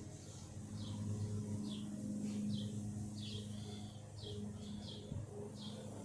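Small birds chirping, short high notes roughly twice a second, over a steady low hum.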